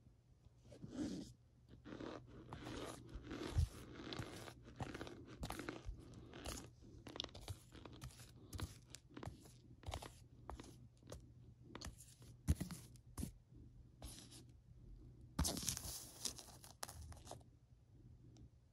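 A spoon digging into and scooping loose cornstarch powder on a plate, making a run of soft crunches at an uneven pace, with a few louder ones.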